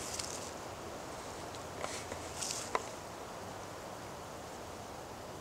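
A few light clicks and brief rustles of feet shifting on grass strewn with dry leaves, over a steady outdoor hiss.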